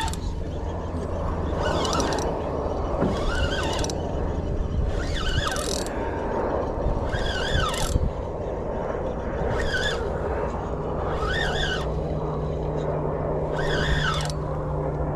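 Spinning reel being cranked against a hard-pulling leopard shark, the reel and its drag giving short pitched, wavering squeals every second or two. A steady low hum runs underneath.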